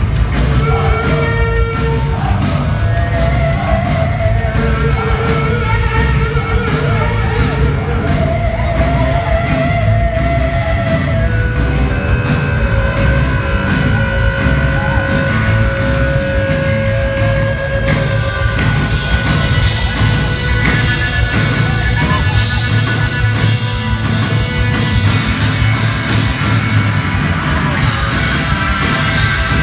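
Live rock band playing loudly, with drum kit, bass guitar and electric guitar, and long held, wavering notes over the beat, heard from within the audience.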